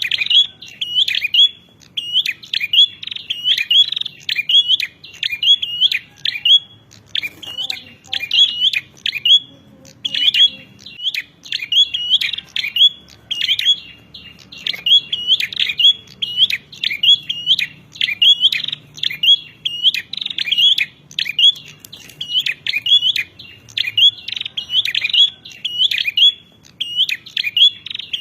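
Prenjak (prinia) singing an excited, fast run of short, sharp chirps, several a second, with only brief pauses. This is the agitated 'fighting' song that keepers play to tutor caged birds.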